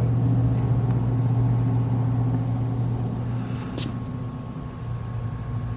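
Steady machine hum, with a few light clicks about three and a half seconds in.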